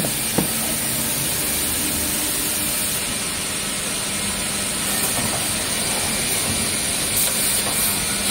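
Steady hiss and low hum of woodworking machinery running, with a short knock about half a second in as a board is handled.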